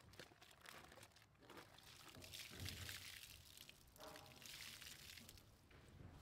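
Faint water sloshing and splashing as a microfibre wash mitt is swished through a bucket of rinse water to clear out dirt, then lifted out dripping near the end.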